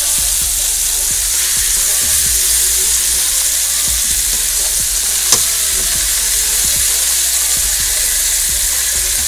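Skinless chicken breasts sizzling steadily in melted butter in a nonstick skillet as they are turned with silicone tongs to sear the second side. A single sharp click about five seconds in.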